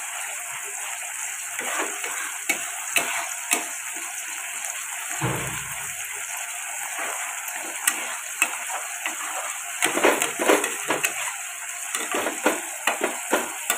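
Spice paste for a curry frying and sizzling in a kadai while it is cooked down. A metal spatula stirs and scrapes it, clicking and knocking against the pan, more often in the last few seconds.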